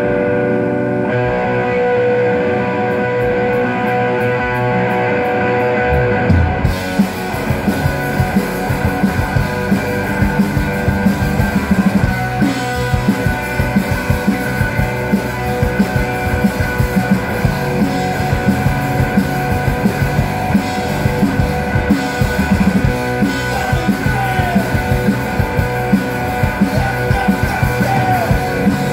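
Live rock band playing amplified through a stage PA: a sustained droning chord opens, then about six seconds in the drum kit and electric guitars come in and the full band plays on with a steady beat.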